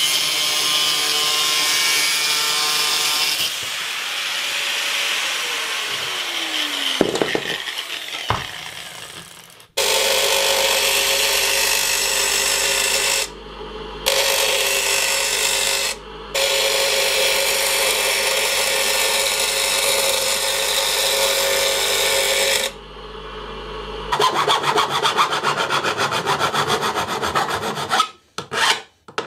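An angle grinder cuts through a metal bracket, and its pitch falls as it spins down about seven seconds in. Next, a bench grinder grinds the bracket steadily, with two short breaks. Near the end, a hand file rasps over the metal in quick strokes.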